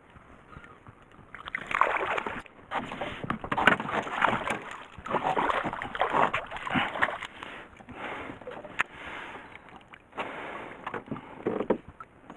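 A hooked largemouth bass splashing at the surface beside a boat in irregular bursts as it is played in and netted. The first second or so is quiet before the splashing starts.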